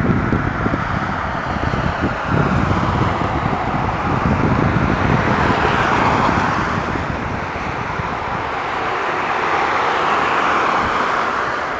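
Two cars driving past close by, one after the other, their tyre and engine noise swelling and fading, the first loudest about halfway through and the second near the end. Wind buffets the microphone.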